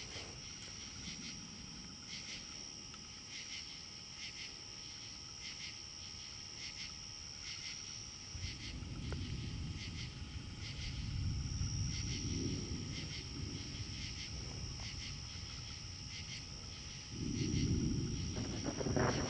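Distant thunder rumbling: a long low roll swelling from about halfway through and fading away, then another beginning near the end. Under it, night insects keep up a steady high trill with chirps about once a second.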